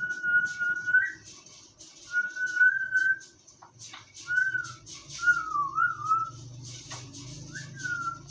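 Five clear whistled phrases, each a single pure tone. The first two are long level notes that turn upward at the end, then come a short arched note, a wavering note and a short falling note. Light clicks and scratches sound between the whistles.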